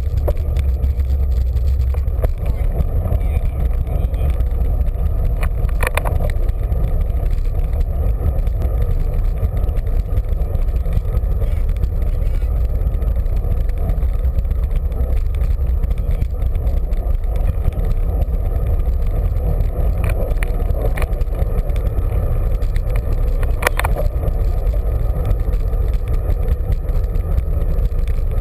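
Steady low rumble of wind and road noise on the microphone of a bicycle-mounted camera while riding along a street, with a few brief clicks.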